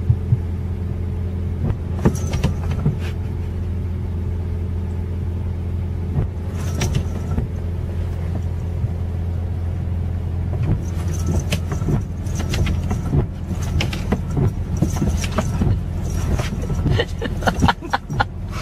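Car engine idling, heard from inside the cabin as a steady low hum, with the windshield wipers swishing across the wet glass now and then; the swishes and clicks come more often near the end.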